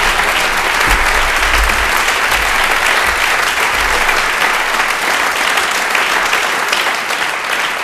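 Large audience applauding steadily, a dense clatter of many hands clapping.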